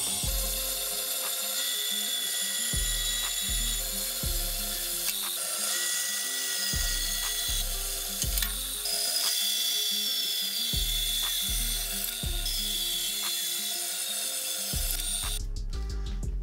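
Metal-cutting band saw running and cutting through a rusty square steel tube: a steady hiss with a faint whine from the blade, stopping about a second before the end. Background music with a bass line repeating every few seconds plays underneath.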